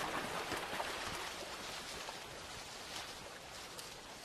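River water flowing and splashing, with a few light splashes, slowly getting quieter.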